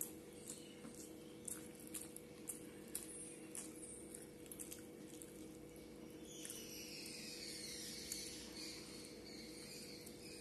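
Close-up eating sounds of a person chewing rice and curry eaten by hand: wet chewing and lip smacks heard as many short clicks, over a steady low hum. From about six seconds in, a faint high sound glides downward in pitch.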